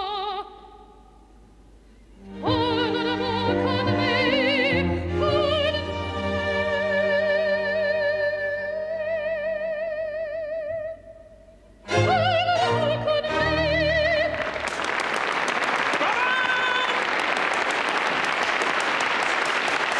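A female opera singer sings an aria with wide vibrato over an orchestra, with a brief pause near the start and another about 11 s in, ending on a held note. About two-thirds of the way through the singing stops and the audience breaks into applause.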